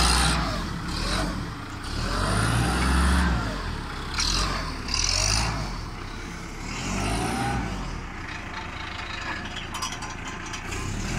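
3-ton diesel forklift engine running and picking up revs as the truck drives and manoeuvres, louder in the first few seconds and quieter from about halfway through, with intermittent hissing.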